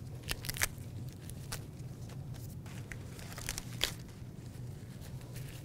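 Washed lettuce leaves being torn apart by hand: a few short, crisp rips and crunches at uneven intervals, over a steady low room hum.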